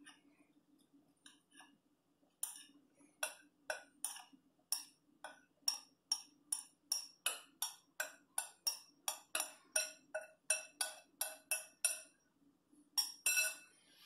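Light clinking knocks of a utensil tapping on a hard, glassy container as the rest of the flour is knocked into the blender jar, about three a second. They start a couple of seconds in, stop about two seconds before the end, and then come twice more.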